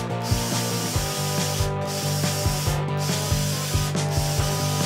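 Cordless drill boring through the wall of a steel tube, a steady grinding whir of the bit cutting metal, until the bit breaks through. Background music with a steady beat plays under it.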